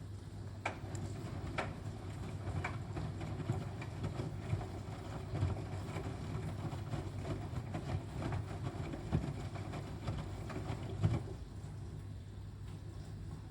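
Washing machine running a cottons 40° intensive wash: a steady low hum with regular knocks about once a second as the drum turns the linen. The knocks stop about eleven seconds in, leaving only the hum.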